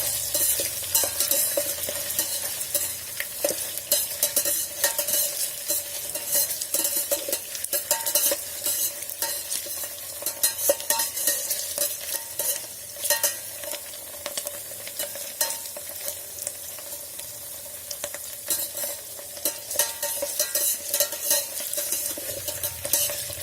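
Paneer cubes sizzling as they shallow-fry in hot oil in a pan, with a steady crackle. A metal spoon stirs them, scraping and clicking against the pan many times.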